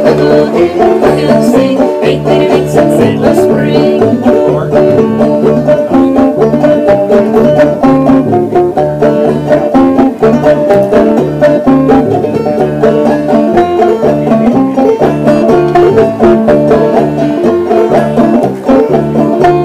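Banjo and upright bass playing a bluegrass tune: quick picked banjo notes over a steady plucked bass line.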